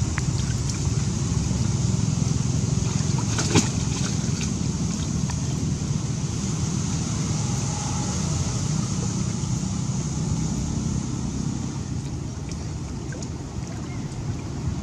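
Steady outdoor background noise: a low rumble under a high, even hiss, with a single sharp click about three and a half seconds in.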